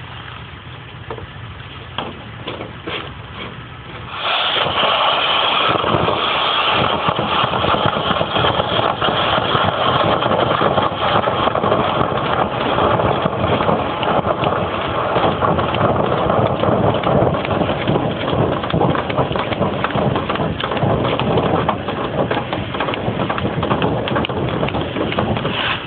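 Powered dryer vent cleaning machine starting about four seconds in over a low rumble, then running steadily with a loud, even whoosh.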